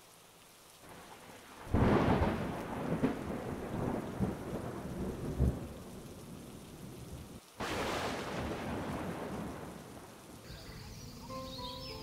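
Thunderstorm: two thunderclaps about six seconds apart, each starting suddenly and rolling on as a long rumble, over steady rain.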